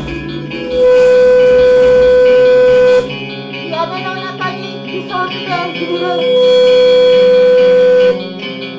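Improvised experimental music from electric guitars and turntables, cut twice by a loud, steady pitched tone held for about two seconds: once starting about a second in, and again a little past the six-second mark.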